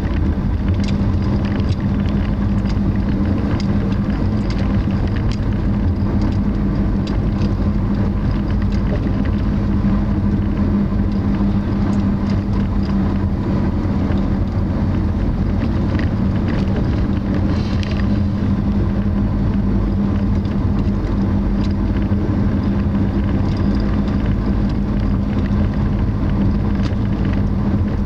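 Steady road and engine noise of a moving car heard from inside the cabin: a low rumble with an even drone, and faint light ticks now and then.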